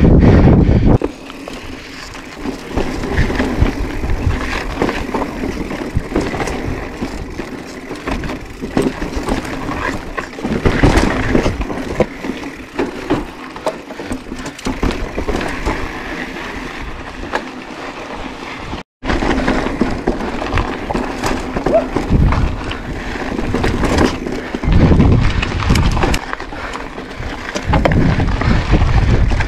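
Mountain bike riding over slickrock and dirt trail: wind buffeting the handlebar camera's microphone, with tyre noise and the knocks and rattle of the bike over the rock. The sound cuts out for an instant about two-thirds of the way through.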